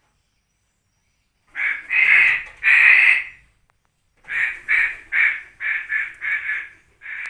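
Crow cawing, starting about a second and a half in: three long caws, then a quicker run of about seven shorter caws.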